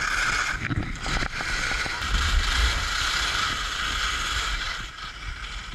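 Skis hissing and scraping over snow during a fast downhill run, a steady rushing noise, with a low rumble about two seconds in.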